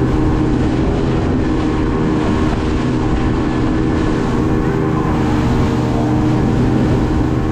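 Motorboat engine running steadily at speed, with the rush and splash of spray from the churning wake.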